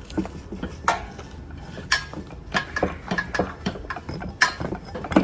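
Metal hand tools and parts clinking and clanking against each other, a string of irregular sharp knocks with short metallic ringing, the loudest about one, two and four and a half seconds in.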